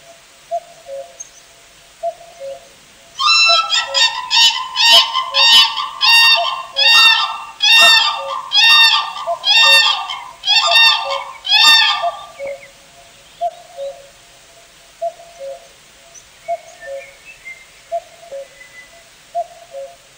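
Common cranes trumpeting: a run of about a dozen loud calls roughly a second apart, starting about three seconds in and stopping near twelve seconds. Behind them, a soft two-note bird call repeats steadily throughout.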